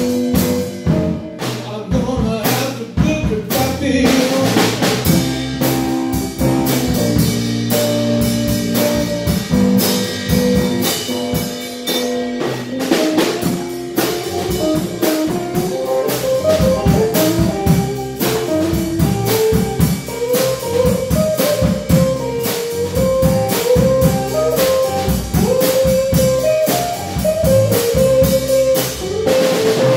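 Live band playing electric guitar, electric bass and drum kit in a steady blues-style groove.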